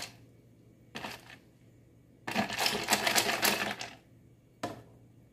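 A spoon clinking and scraping against a plastic blender jug and the ice cubes inside, knocking honey off: a short rattle about a second in, a longer run of rapid clicks from about two to four seconds, and one last click near the end.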